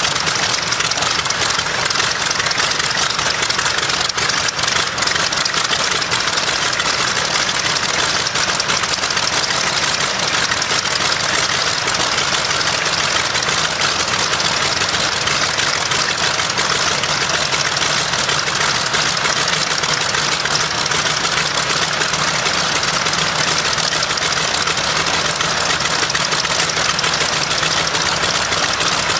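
Nakajima Sakae fourteen-cylinder twin-row radial engine of a Mitsubishi A6M Zero running steadily on a ground run, its propeller turning.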